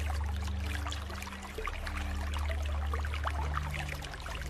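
Water dripping and trickling in many small, scattered drops, the relaxing rain-and-water sound. Under it runs a low held musical drone that changes note about three and a half seconds in.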